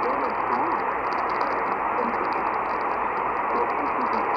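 AM radio broadcast heavy with static: a steady hiss with a faint voice underneath.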